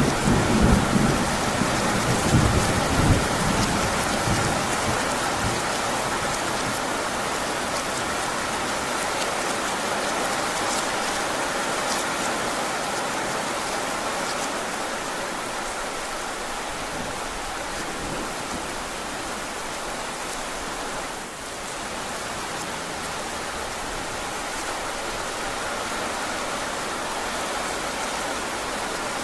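Heavy rain falling steadily, with a low roll of thunder in the first few seconds that fades away.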